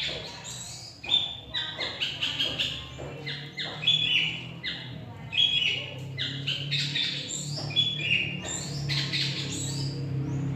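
Long-tailed shrike (cendet) singing a fast, varied run of short chirps and whistled glides, its mimicking song made of other birds' calls strung together.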